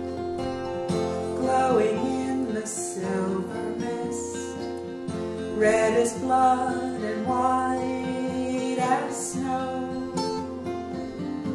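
Instrumental music: acoustic guitar strumming steadily under a gliding melody line.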